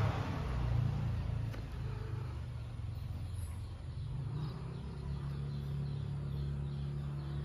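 Low, steady rumble of an engine running, with a hum that grows a little stronger after about five seconds.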